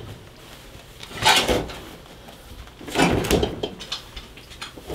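Ceramic floor tile being broken up and scraped off by hand: strokes of a hand tool crunching and scraping tile and mortar, about one every two seconds.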